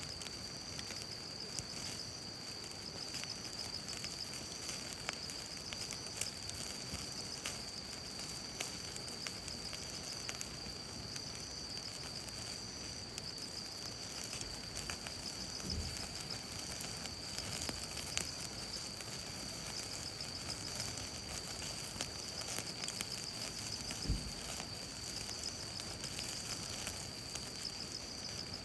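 Wood campfire crackling with scattered sharp pops, over a steady high-pitched insect trill.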